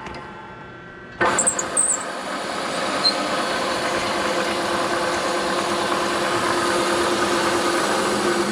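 A machine spindle runs, then about a second in a cutting tool bites into the piston casting with a brief high squeal and settles into steady cutting of a set-screw hole.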